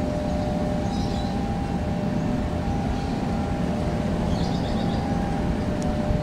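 Diesel-electric locomotive running steadily as it approaches hauling passenger coaches: a continuous low engine rumble with a faint steady whine above it. Short high chirps come about a second in and again past four seconds.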